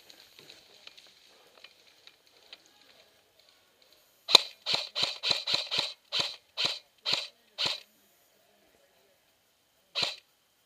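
Airsoft gun firing close by: a string of about eleven single shots in under four seconds, slowing toward the end, then two more shots after a pause.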